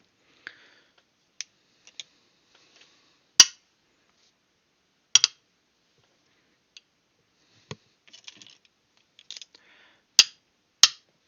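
Scattered sharp metallic clicks and clinks as the parts of a magnetic third-hand soldering station are handled and set against its steel base plate, with the loudest knocks about a third of the way in, near halfway and twice near the end.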